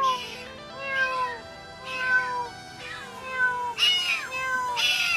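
Domestic cat meowing over and over, about one call a second, each meow falling in pitch.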